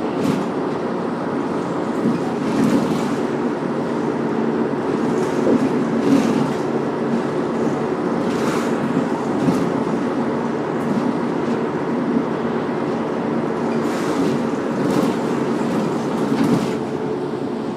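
Inside a moving city bus: steady engine and road rumble, with scattered rattles and knocks from the bodywork.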